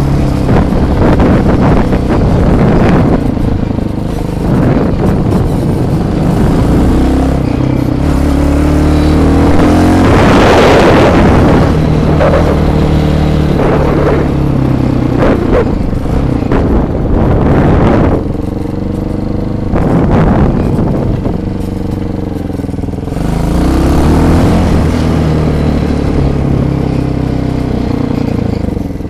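Bashan quad bike's engine running while ridden, its pitch rising and falling again and again as the throttle is opened and eased off. A surge of rushing noise about ten seconds in.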